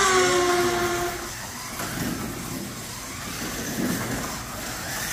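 Revoslot Ferrari F40 slot car running on the track. Its small electric motor whines, falling in pitch through the first second, then gives way to a rougher running rumble of the car over the plastic track. It is a fairly quiet-running car.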